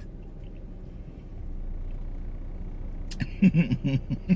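A woman's wordless vocal reaction to a very tart, sour taste: a quick run of short pulsed vocal sounds about three seconds in. Before it, only the steady low hum of a car interior.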